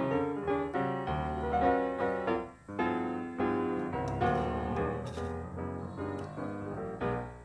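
Background piano music: a gentle tune of struck notes and chords.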